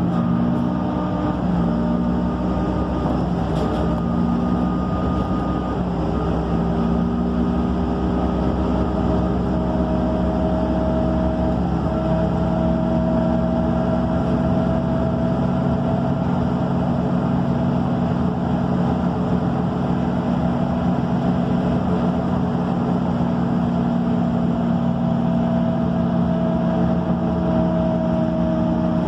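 MAN Lion's City city bus's diesel engine running, heard from inside the passenger cabin. Its pitch shifts a few times in the first seconds, then holds steady.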